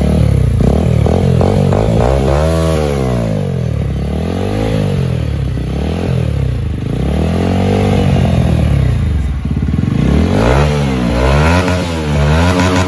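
TVS Apache RTR 160 4V's single-cylinder engine, running through a freshly fitted aftermarket exhaust, revved again and again with the throttle. The revs climb and fall in long swells, then in quicker, shorter blips near the end.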